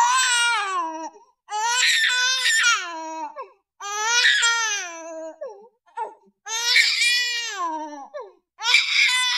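High-pitched crying: about five long wailing sobs, each sliding down in pitch, with short breaks between them.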